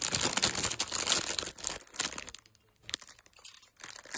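Packaging rustling and crinkling as a motorcycle blinker indicator is unwrapped. It crackles for about two seconds, goes briefly quiet, then rustles in short bursts near the end.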